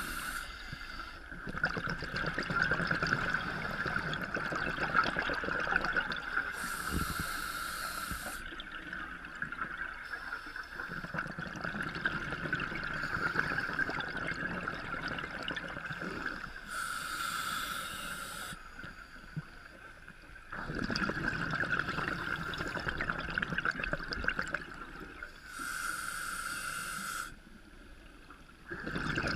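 Scuba diver breathing through a regulator, heard through a GoPro's underwater housing: a hiss alternating with bubbling and gurgling, in a slow cycle that repeats about every nine seconds.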